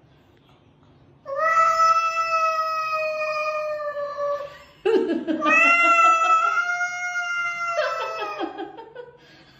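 A cat yowling at another cat in a standoff: two long, drawn-out wails. The second opens with a low growl and fades away near the end.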